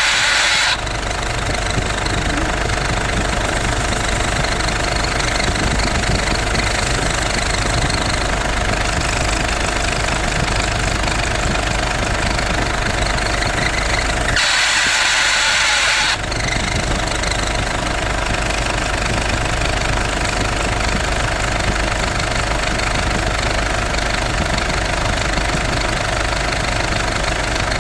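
A 2009 Ford Everest's engine idling steadily, with the air-conditioning compressor and its magnetic clutch fitted on it; the mechanic takes the clutch for the cause of the noise heard when the aircon is switched on. A brief hiss comes right at the start, and another lasting nearly two seconds comes about halfway through.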